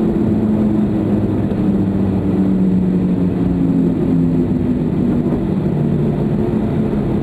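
Cabin noise inside a Boeing 737-300 during its landing rollout: a steady rumble with the low hum of its CFM56-3 jet engines, whose pitch wanders as the aircraft slows on the runway.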